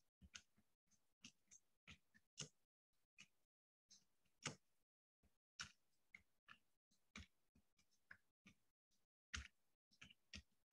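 Faint typing on a computer keyboard: irregular keystroke clicks, about two or three a second, with short pauses between bursts.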